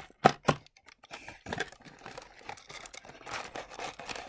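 Cardboard blaster box of hockey cards being handled and opened by hand: two sharp knocks near the start, then light clicks and rustling of the cardboard flaps, with a longer scraping rustle about three seconds in.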